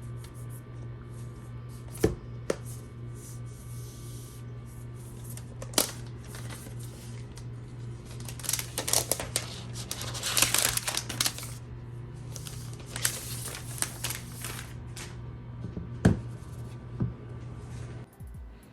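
A laptop box and its packaging being handled and opened by hand. Several sharp taps and knocks, and two longer stretches of tearing and crinkling packaging near the middle, over a steady low hum.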